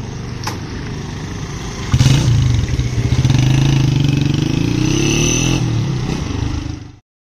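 A motor vehicle's engine running. It gets louder about two seconds in, rises in pitch as it accelerates, then cuts off abruptly near the end.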